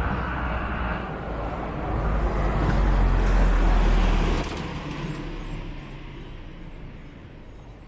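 Street traffic: a motor vehicle passes close by with a low rumble, loudest about three to four seconds in, then fading away.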